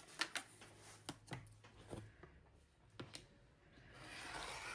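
Faint scattered clicks and taps of fabric, ruler and rotary cutter being handled on a cutting table, with a soft rustle of fabric near the end.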